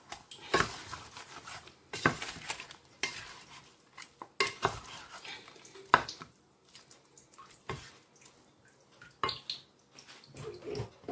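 Wooden spoon stirring and turning raw turkey pieces in a cooking pot, with irregular knocks and scrapes of the spoon against the pot.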